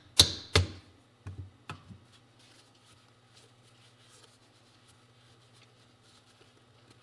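Mallet striking a socket extension used as a seal driver, seating the clutch push rod oil seal into a Yamaha YL1 aluminium crankcase: two sharp strikes within the first second, then four lighter taps. After that, faint rustling of a paper towel wiping the case.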